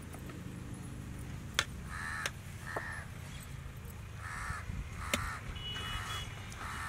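A crow cawing repeatedly, about six short harsh caws spread through the last two-thirds, with a few sharp clicks in between.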